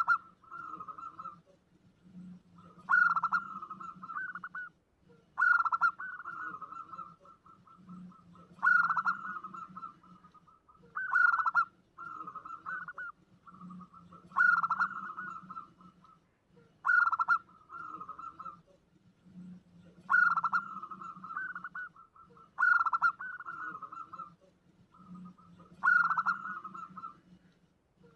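Zebra dove (perkutut) singing its cooing song over and over, about ten phrases here, one every three seconds or so. Each phrase is a sharp opening note followed by a quick stuttering run of coos. It is played as a lure call to draw in other doves.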